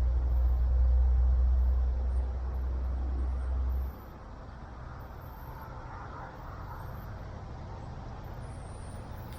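Wind buffeting the action camera's microphone as a heavy low rumble, which drops away sharply about four seconds in, leaving a fainter steady outdoor hiss.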